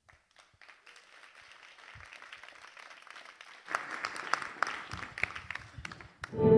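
Audience applauding at the end of a talk. It starts faint, swells about halfway through, then cuts off suddenly.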